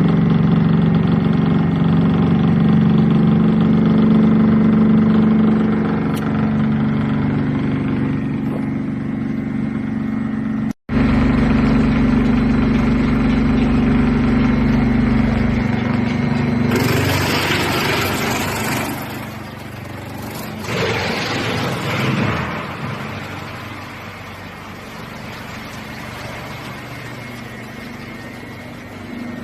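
2113-model large drum wood chipper running with a loud, steady machine hum. Past the middle come two loud, rough stretches, typical of material being fed through and chipped, after which the machine runs on more quietly.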